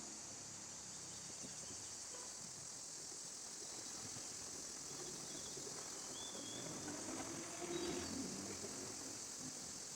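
Steady high-pitched drone of crickets or other insects, with a short, louder rustle about eight seconds in.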